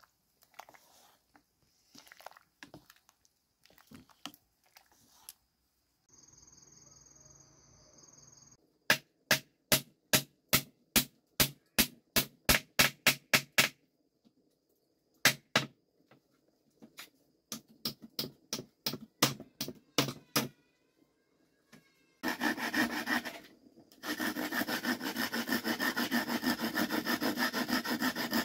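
Faint clinks of a wooden spoon stirring a metal pot of greens. Then a hammer nails wooden slats onto a frame: a fast run of sharp strikes, about three a second, then a lighter second run. Near the end a handsaw cuts through a wooden strip in steady strokes.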